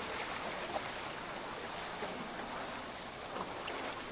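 Fast-flowing jungle river rushing steadily over rocks, an even hiss of moving water.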